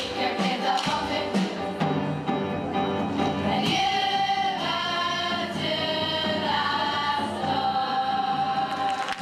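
Girls' choir singing to backing music, with hands clapping in time at first, then holding a long final chord from about four seconds in.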